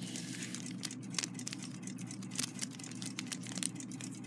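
Faint crinkling and small clicks of an old paper parts packet being handled between the fingers, over a steady low hum.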